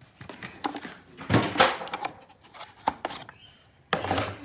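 Plastic fuse-box cover in a Mercedes W164 engine bay being unclipped and lifted open: a series of clicks and knocks, the loudest about one and a half seconds in.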